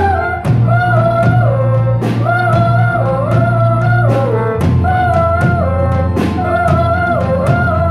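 A live rock band playing: a female lead singer over electric guitars, bass and drum kit. The melody comes in short repeating phrases over a steady bass line and regular drum hits.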